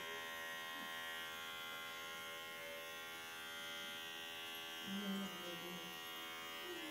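Cordless electric hair clipper buzzing steadily as it shaves a baby's head close.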